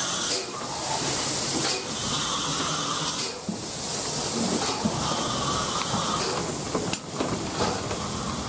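Steam hissing from the LMS Coronation Class steam locomotive 46233 'Duchess of Sutherland' as it rolls slowly past. The hiss swells and drops every second or two, with a few light clicks near the end.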